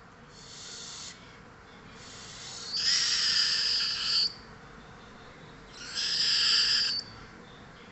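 Parrot making breathy, hissing sneeze sounds in separate bursts of about a second each. The two loudest come about three and six seconds in.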